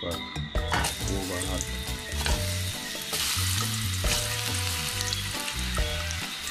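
Thin slices being laid into hot oil in a stainless steel frying pan, setting off a sizzle that starts about a second in and grows louder as more slices go in.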